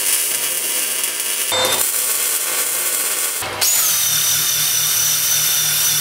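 Arc welding crackle on a steel base plate, in two stretches with a brief break about a second and a half in. About three and a half seconds in it changes to a Makita cordless drill spinning a wire wheel brush against the steel plate: a steady high whine over a low hum.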